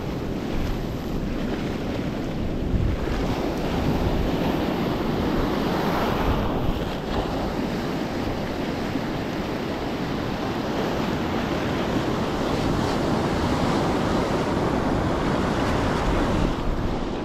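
Ocean surf breaking and washing up a beach, swelling and easing, with wind rumbling on the microphone.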